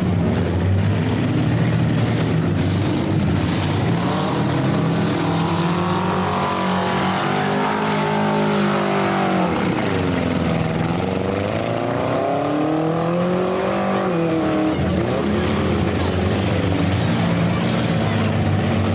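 Several demolition derby car engines running at once. One holds a steady drone, while others rev up and ease off repeatedly through the middle stretch.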